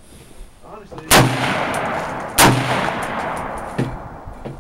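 Two shots from a Bushmaster M4 carbine, about a second and a quarter apart, each echoing out across the range, followed by a fainter crack near the end.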